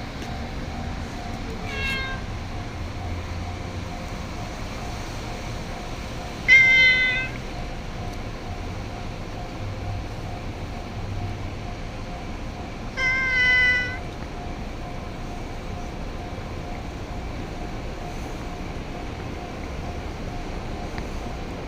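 A cat meowing three times: a short, faint meow about two seconds in, then two louder, longer meows, one around the middle and one about two-thirds of the way through.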